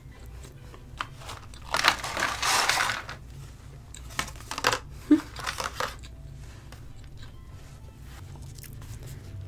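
Paper French-fry carton crinkling as fries are shaken out onto a metal tray: a longer rustle about two seconds in, then a few shorter crinkles of the carton a couple of seconds later.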